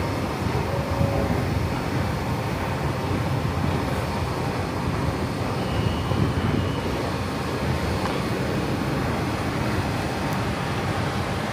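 Steady low rumble and hiss of an underground metro platform, with a metro train standing at the platform.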